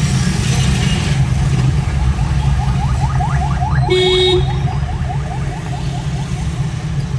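Steady engine and road rumble heard from inside a car moving through busy street traffic. A short horn honk comes about four seconds in, and a quick string of short rising chirps, several a second, runs from about three to six seconds.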